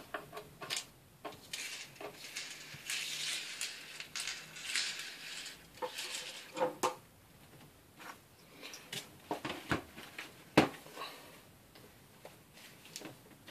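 A plastic laptop case being handled and turned over on a hard tabletop: a few seconds of scraping slide, then scattered clicks and knocks, the sharpest about ten and a half seconds in.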